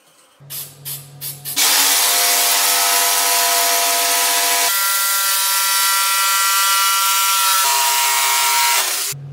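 Bosch electric jigsaw cutting through a wooden board. A few short bursts come as it starts, then it runs steadily under load. The motor pitch steps up about halfway through and drops again later, and the saw stops shortly before the end.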